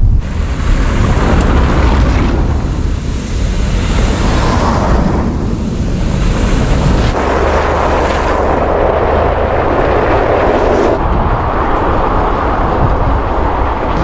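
Pickup truck with a camper body driving on a snow-covered road: wind rushing over the microphone with a low rumble of tyres and engine. The rushing shifts in tone a few times.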